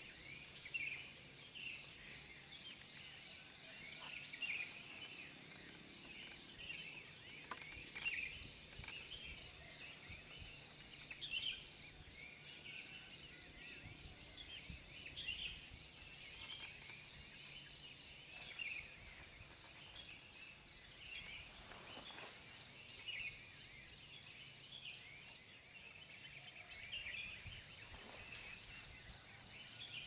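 Many small forest birds chirping and calling in a faint dawn chorus, with a few high, falling whistles about two-thirds of the way through.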